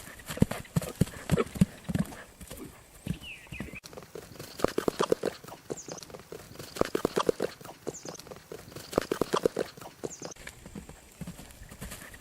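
Horse's hoofbeats as it runs, in quick runs of strikes that come in clusters about every two seconds.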